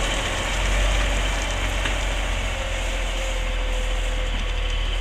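Western Star heavy truck's diesel engine running with a steady low rumble as the loaded truck pulls away.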